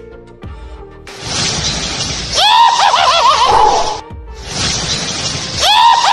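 A cartoon witch's cackling laugh over a loud rushing whoosh, a sound effect heard twice in a row.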